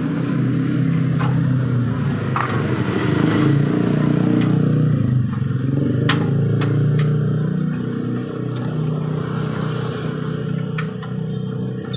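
A steady low mechanical hum like a running engine, with a few sharp metallic clicks and scrapes scattered through it.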